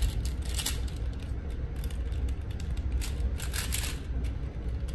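Plastic 4x4 Rubik's cube being turned rapidly at the start of a timed solve: irregular clusters of clicks and clacks as the layers snap round, busiest about three to four seconds in, over a low steady hum.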